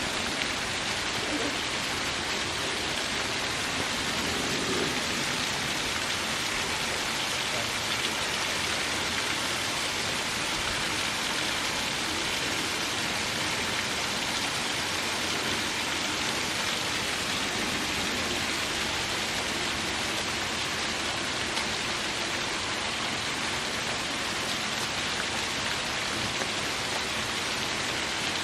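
Small waterfall splashing over rocks: a steady, even rush of falling water that does not change.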